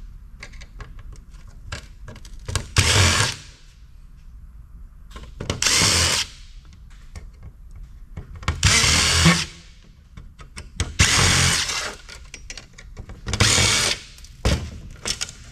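Cordless DeWalt drill/driver backing screws out of a circuit board and its sheet-metal tray in five short runs of about a second each. Small clicks and taps between the runs.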